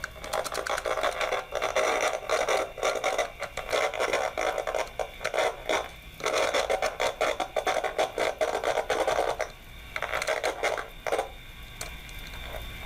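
Inductive tone-tracer probe's speaker crackling and hissing in bursts as its tip is brushed across the wires and clips of a telephone punch-down block, with no clear trace tone: the pair being traced has not been found. The crackle stops about 11 seconds in, leaving a fainter steady hiss.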